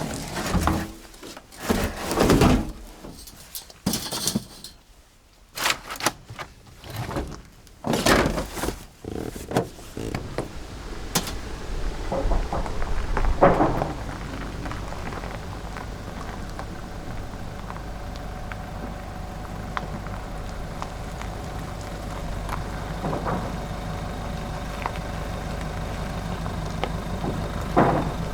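A string of separate thunks and knocks, then from about halfway an engine starts and idles steadily.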